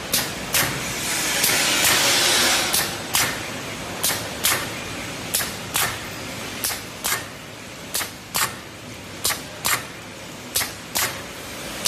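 Bag-making machine for flower sleeves running in steady cycles: a pair of short, sharp hissing strokes, about half a second apart, repeats roughly every 1.3 seconds over the machine's running noise.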